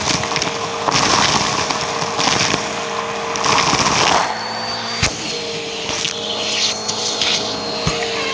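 Vacuum cleaner running steadily as its hose nozzle sucks up a pile of rice, beads and other small dry bits, the pieces crunching and rattling up the hose over the motor's hum. The rattle comes and goes as the nozzle moves through the pile, with a sharp click about five seconds in.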